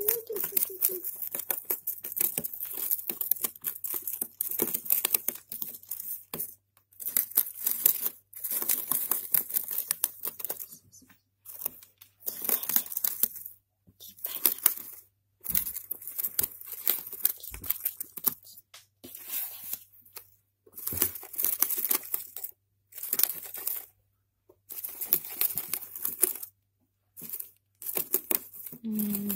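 Gerbil gnawing cardboard: bursts of rapid, crisp crunching and tearing, each lasting a second or two, with short pauses between them.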